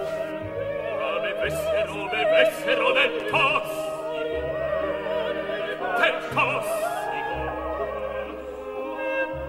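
Opera music: voices singing with a wide vibrato over an orchestra's sustained low notes.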